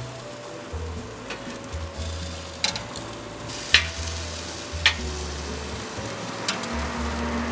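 Chicken sizzling on a charcoal grill, with several sharp metallic clicks as steel tongs knock against the grate while turning the pieces; the two loudest clicks fall near the middle. Soft background music with held notes and a bass line plays underneath.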